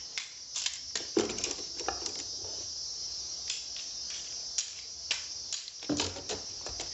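Corner poles of a portable shower frame being pulled out and laid into a hard plastic tub: a scattered series of light clicks and knocks, with a steady high hiss behind them.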